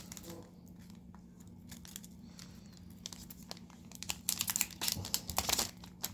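Foil trading-card booster pack wrapper crinkling and tearing as it is handled and opened, with sparse crackles at first, becoming denser and louder from about four seconds in.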